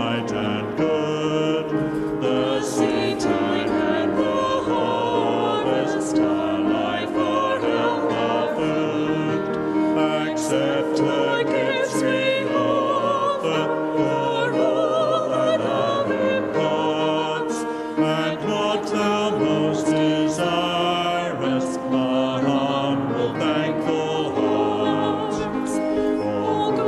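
A choir singing a hymn, with held notes sung with vibrato.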